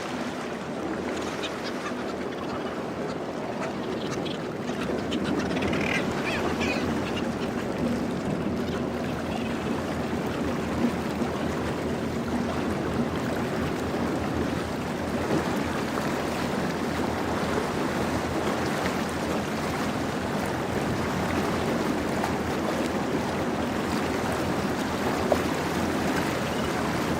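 Steady noise of a boat at sea: engine, water wash and wind. A brief burst of cackling seabird calls comes about six seconds in.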